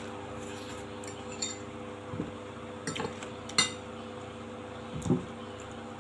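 Metal fork clinking and scraping against a glass plate, a few separate clinks with the loudest about three and a half seconds in as the fork is set down on the plate, then a dull knock near the end.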